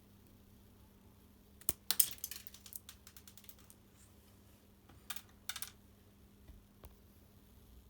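Small hard clicks and rattles of plastic parts being handled during disassembly of a work light: a busy cluster about two seconds in and a shorter one about five seconds in.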